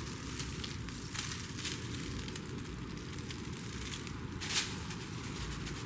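Faint crackling and rustling of potting soil and its plastic bag being handled, a few small crackles with a sharper one about four and a half seconds in, over a steady background hiss.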